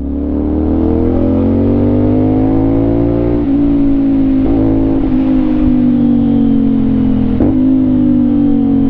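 CFMOTO 450NK's parallel-twin engine running through an Orion Ara slip-on exhaust under way. Its note climbs for about three seconds, then holds and slowly falls, with two brief breaks: one about three and a half seconds in and one near the end.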